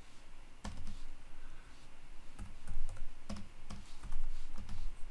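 Typing on a computer keyboard: a run of uneven keystrokes, some in quick clusters and some after short pauses.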